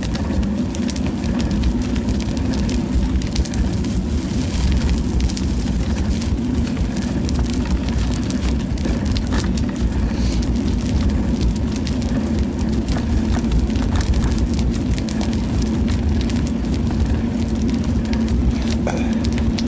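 Steady wind rush and rolling road noise on a moving action camera's microphone, with a low hum and many small rattling clicks throughout.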